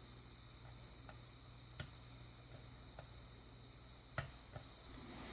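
Faint, irregular ticks of a lock pick tapping the pins inside a pin-tumbler padlock held under very light tension, about half a dozen in all, the sharpest about 2 and 4 seconds in.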